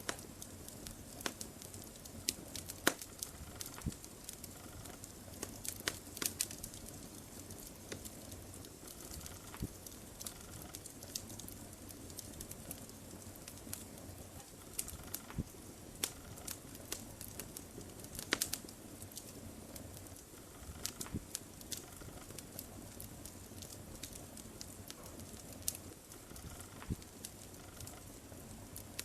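Wood fire crackling in a fireplace: sharp, irregular pops and snaps over a steady low hiss of burning.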